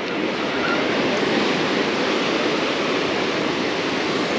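Ocean surf rushing up the beach: a steady wash of breaking waves that swells in and then holds.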